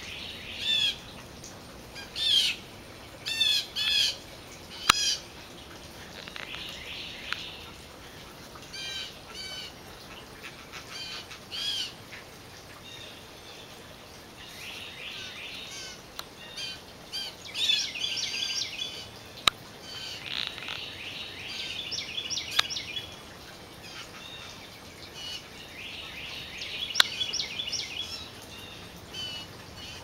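Blue jays calling: a run of five loud, repeated calls in the first five seconds, then scattered calls and stretches of chattering. A few sharp clicks stand out in the second half.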